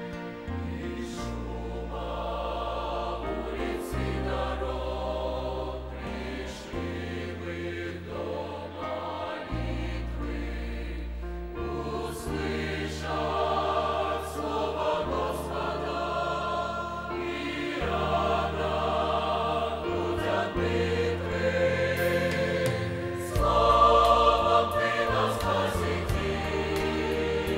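Mixed church choir singing a hymn in Russian, over instrumental accompaniment with a low bass note held for a couple of seconds at a time. The singing grows louder about 23 seconds in.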